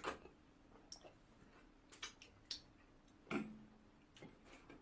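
Scattered wet mouth clicks and smacks of someone eating noisily with an open mouth, about six sharp ones, with a brief low hum about three seconds in.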